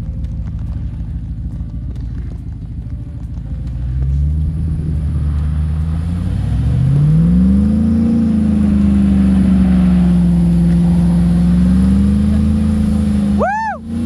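Vehicle engines revving hard under load as a Jeep tows a stuck box truck through deep snow with a recovery strap, wheels spinning. The engine climbs in pitch about halfway through and holds at high revs for several seconds, with a short squeal near the end.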